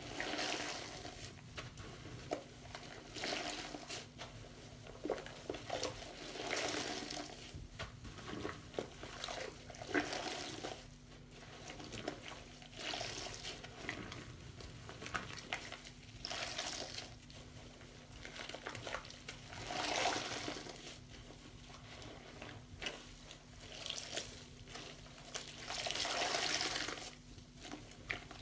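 Soapy foam sponges squeezed and rubbed by hand in a sink of sudsy water: wet squishing and splashing in repeated bursts every second or two.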